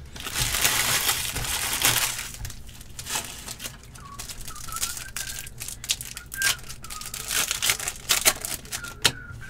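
A foil trading-card pack crinkling as it is torn open by hand, followed by the light clicks and flicks of the cards being thumbed through.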